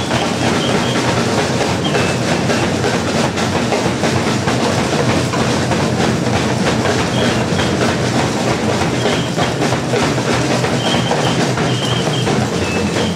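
Snare drums played with sticks in a fast, dense, driving rhythm, with short high notes sounding over it now and then.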